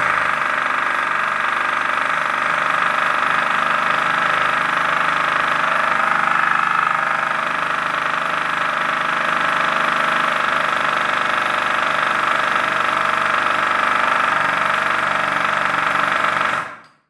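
Pneumatic air hammer running continuously on CO2 from a 12 oz paintball cylinder, regulated to about 80 PSI. It is a loud, steady mechanical running sound that starts abruptly and cuts off suddenly near the end.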